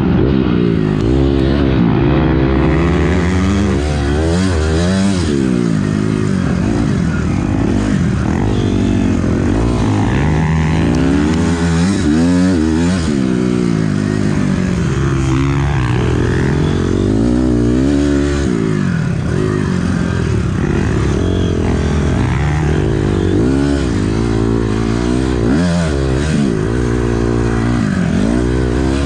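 2006 Honda CRF250R's single-cylinder four-stroke engine, heard close up from the rider's camera, revving up and falling back over and over as the throttle is worked and gears change at race pace.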